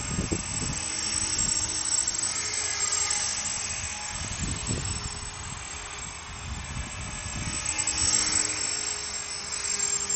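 CopterX 450 PRO electric RC helicopter in flight: the high whine of its electric motor and belt-driven drivetrain with the hum of the rotor blades, its pitch drifting and its loudness swelling as the model passes nearer, most strongly about eight seconds in and again near the end. Low gusty rumbles, likely wind on the microphone, come near the start and about halfway through.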